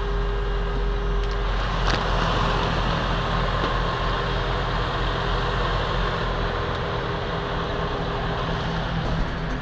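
Semi truck's diesel engine idling steadily with a low hum, and a single sharp click about two seconds in.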